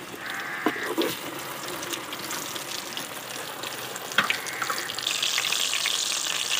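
Battered chicken leg deep-frying in hot oil in a wok: a steady bubbling sizzle that grows louder about five seconds in, with a few light clicks of the utensils.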